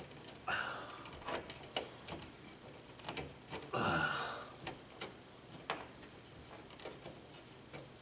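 Wires and plastic wire nuts being pushed and folded into a shallow ceiling junction box: scattered small clicks and ticks, with two longer, louder scuffs about half a second and four seconds in.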